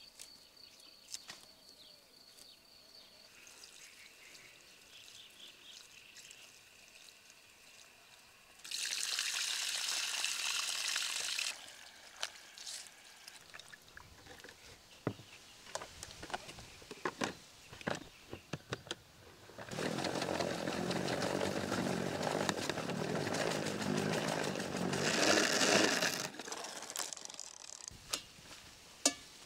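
Water running over lettuce leaves for about three seconds, then scattered light clicks and rustles as the leaves are handled. A plastic salad spinner then whirrs for about six seconds.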